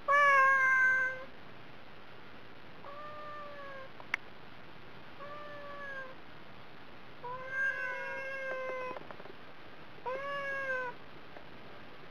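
Domestic cat meowing repeatedly to be fed: five separate meows, the first the loudest, one near the middle longer and drawn out. A single sharp click sounds between the second and third meow.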